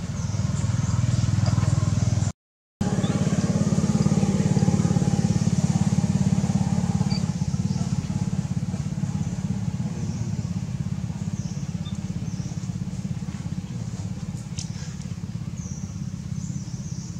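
A steady, low motor-engine drone with a fast even pulse, cutting out completely for half a second about two and a half seconds in. A few faint high chirps sound over it later on.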